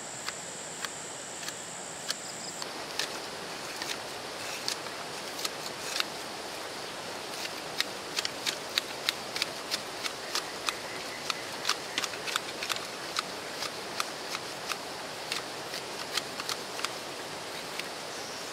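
Outdoor ambience over a steady hiss: a high, steady insect-like trill cuts off about two and a half seconds in, followed by many irregular sharp ticks and taps that come thicker from about the middle on.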